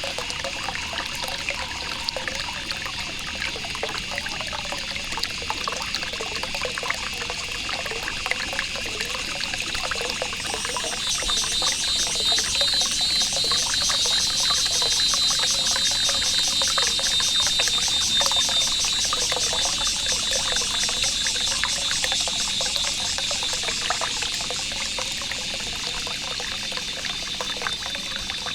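Water trickling and splashing steadily in a forest. About eleven seconds in, a high, rapidly pulsing buzz joins and becomes the loudest sound, easing off near the end.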